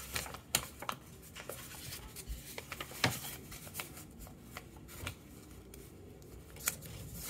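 Quiet rustling of packaging with irregular small clicks and taps as items are handled and sorted out of a shipping box, one sharper click about three seconds in.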